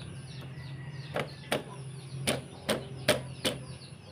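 Six sharp clicks or knocks of hard parts, irregularly spaced about two or three a second through the second half, as the handlebar riser and its mount are handled and seated. Faint bird chirping and a low steady hum carry on underneath.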